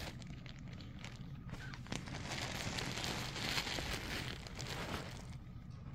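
Fabric rustling and scratching close to the microphone, with many small clicks, swelling to its loudest between about two and five seconds in.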